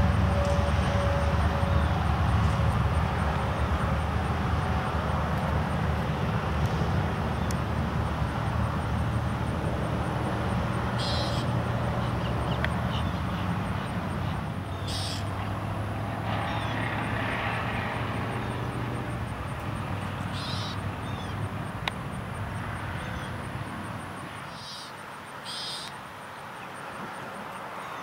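Low steady drone of a passing airplane that slowly fades away, with a few short, high bird chirps over it.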